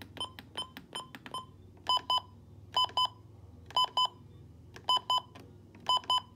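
A Midland weather radio's electronic alarm beeping: short high beeps about three a second, then from about two seconds in a steady pattern of double beeps repeating about once a second.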